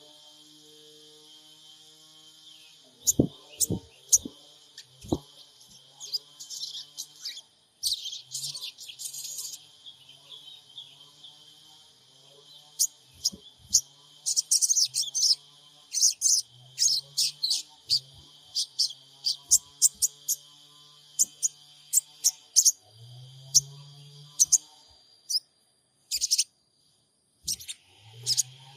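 Sogon bird calling in the 'trotol' style: bursts of sharp, high chips and quick chattering runs, the kind of call played as a lure to set captive sogon birds singing. A faint low hum runs underneath.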